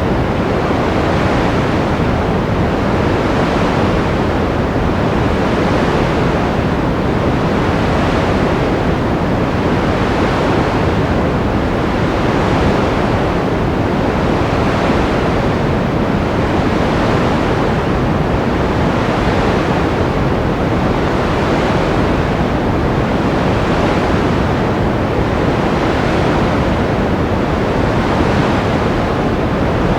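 Steady white-noise sleep sound, a full rushing hiss weighted toward the low end, gently swelling and easing about every two seconds like surf.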